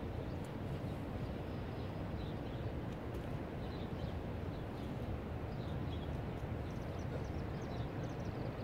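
Outdoor background noise: a steady low rumble, with faint, short high chirps scattered over it.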